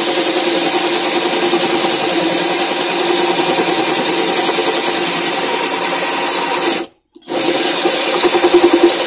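Compact power drill running a glass hole saw into a glass jar: a steady motor whine with a gritty grinding scrape of the bit on the glass. The sound cuts out for a split second about seven seconds in, then carries on.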